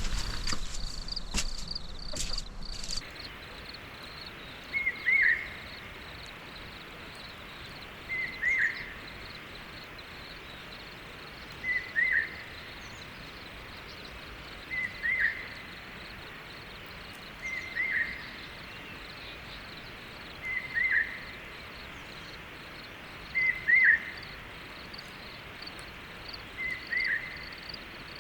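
Rural night-like ambience: steady high insect trilling, and about every three seconds a short, loud, two-part falling call from an animal that repeats eight times. A few clicks sound in the first few seconds.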